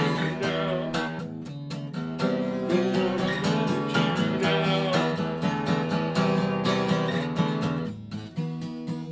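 Acoustic guitar strummed in a steady rhythm, an instrumental passage of a song.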